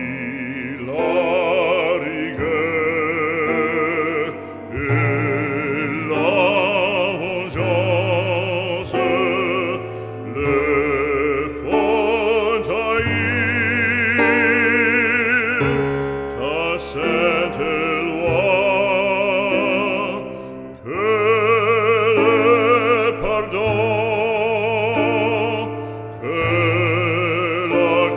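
Background music: a classical solo voice sings long notes with wide vibrato over a sustained accompaniment, in an operatic style.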